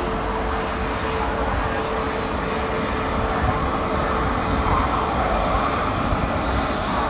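Electric locomotive running with a loud, steady drone, with a thin steady whine over it that fades out about halfway through.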